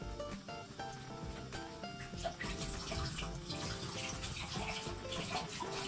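Background music with a light melody of short notes; about two and a half seconds in, water starts running from a tap and carries on under the music.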